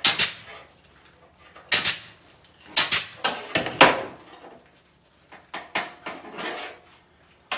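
A pneumatic C-ring gun firing rings into chicken wire: about four sharp shots in the first four seconds. After them come softer rattles and clinks as the wire form is handled on the steel table.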